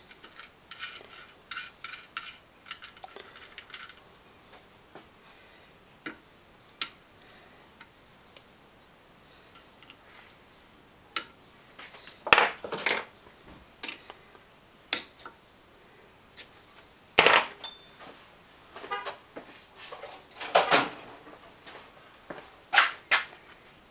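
Metal clinks, clicks and knocks of a car alternator and small parts being handled on a workbench, with a few louder knocks as the alternator is picked up and set down.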